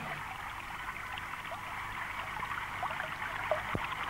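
Small mountain brook near its source, trickling and gurgling steadily over stones.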